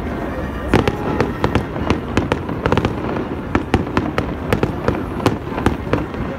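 Aerial fireworks bursting in a rapid, irregular series of sharp bangs and crackles, several a second, with no pause.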